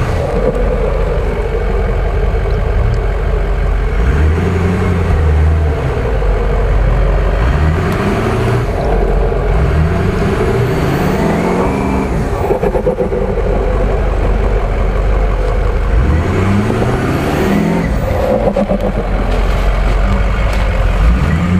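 Ford F-250 pickup's engine revving up and falling back several times as the truck crawls over a rutted off-road trail.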